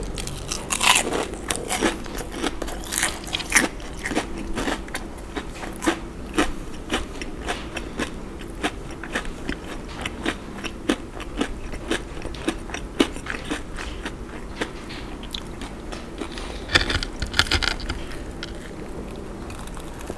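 Close-miked biting and chewing of a crispy, breadcrumb-coated fried shrimp donut, its crust crunching and crackling in quick, uneven bursts. There is a louder burst of crackling near the end.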